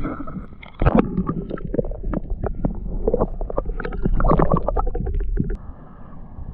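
Muffled water sloshing and gurgling heard through a microphone held underwater in a lake, with a heavy low rumble and irregular knocks and splashes as a hand releases a yellow perch; the sound drops away about a second before the end when the camera comes out of the water.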